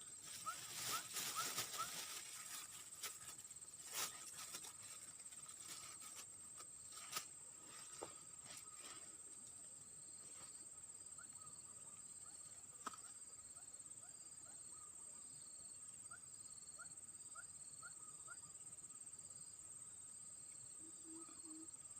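Insects, such as crickets, droning steadily at a high pitch, joined about halfway through by a second insect pulsing in short, even beats. Short rising chirps come and go. A few sharp clicks and knocks sound in the first several seconds.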